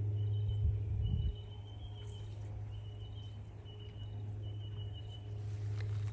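Rural garden ambience: a steady low hum, with a high, thin trill repeating in short runs. Wind rumbles on the microphone for the first second or so.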